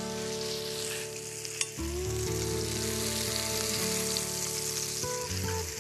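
Halloumi cheese sizzling as it fries in olive oil in a hot pan, with a spatula working under the slices and one sharp tap about a second and a half in.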